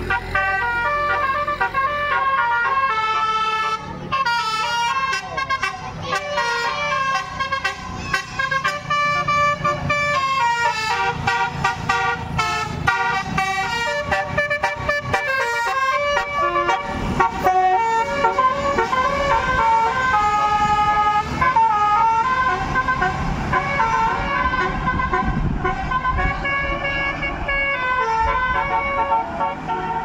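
Tour bus's multi-tone 'telolet' musical air horn playing a tune in stepped, held notes, with the bus's engine running low underneath, loudest in the second half as the bus comes through the bend.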